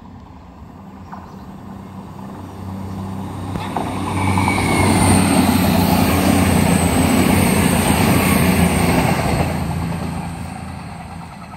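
CrossCountry Voyager diesel multiple unit passing close by. The drone of its underfloor diesel engines and the rush of wheels on the rails build over about four seconds, stay loud for about five seconds as the coaches go past, then fade away.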